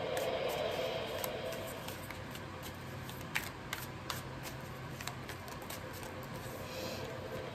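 A deck of oracle cards being shuffled and handled by hand, with scattered sharp card clicks, the loudest about three and a half seconds in.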